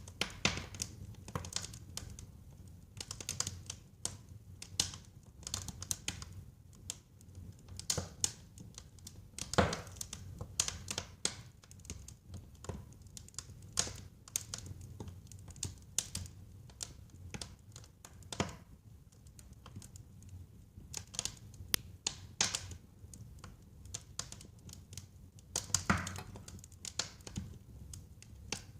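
Wood fire burning in a fireplace, crackling with irregular sharp pops over a low steady rumble of the flames; the loudest pops come about ten seconds in and near the end.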